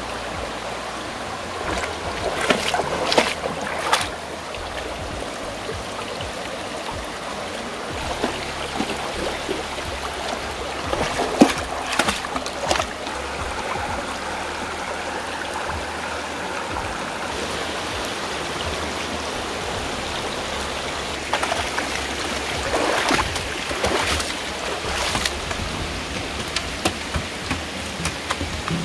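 A shallow, rocky stream running steadily over stones. Short bursts of splashing come three times, as a dog and a person wade through the water.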